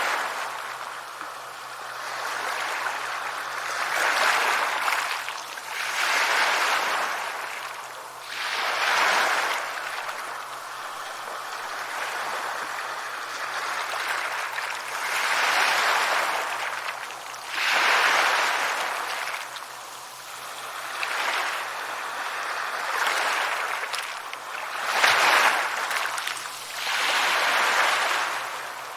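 Sea waves washing onto a shore: surges of surf every few seconds, each swelling and falling away into a short lull, with little low rumble.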